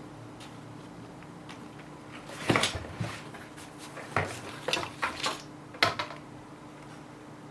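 Mechanical keyboard keys struck one at a time, a handful of sharp separate clacks spread over a few seconds, with a faint steady hum underneath.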